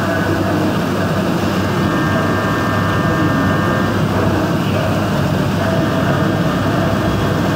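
CNC machining centre spindle driving a 16 mm four-flute carbide end mill through aluminium under flood coolant: a steady, loud cutting noise mixed with the hiss and splatter of coolant spray. A faint high whine joins the cut for a couple of seconds near the middle.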